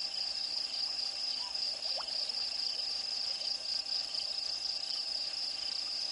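Night insect chorus of crickets: a steady, pulsing high-pitched trill. A faint short rising call sounds once, about two seconds in.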